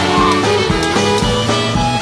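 Background music: an instrumental band track with a steady drum beat.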